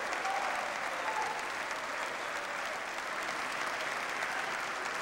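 A large audience applauding steadily, with a few voices calling out faintly in the first second.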